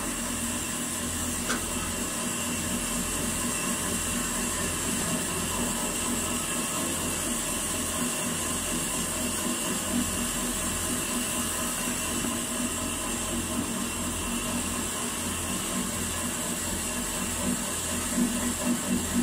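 Foam-cutting machinery running steadily: a continuous hum and hiss with a constant high whine over a regular low pulsing. A few soft knocks come near the end.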